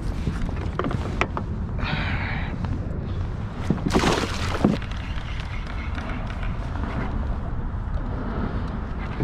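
Wind rumbling on the microphone and water against a kayak, with a few small knocks. A louder rush of noise comes about four seconds in.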